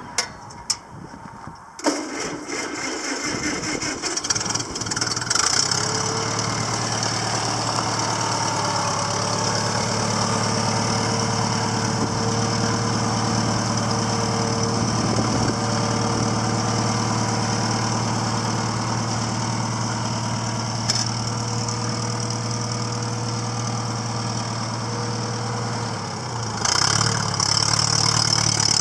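International 340 tractor engine cranked by its starter and catching after a second or so, then idling steadily with an even low beat. About two seconds from the end the engine note changes and grows louder as the tractor is put under way.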